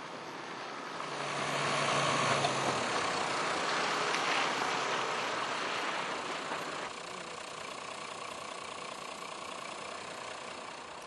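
Toyota Land Cruiser 100's diesel engine and tyres as the SUV drives up and passes close by, growing louder about a second in. After about seven seconds it drops to a steadier, quieter engine sound.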